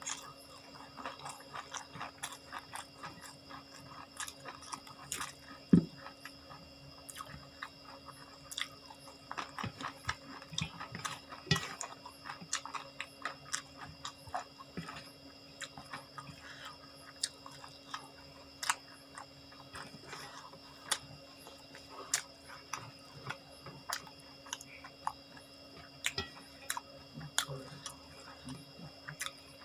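A person chewing and biting food close to the microphone: many soft, irregular mouth clicks and crunches, with one sharp knock about six seconds in. A faint steady hum runs underneath.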